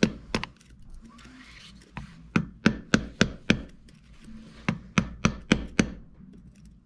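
Hammer blows on the front sprocket of a Yamaha YZ250 engine: two strikes, then two quick runs of six or seven blows, about three a second, with short pauses between.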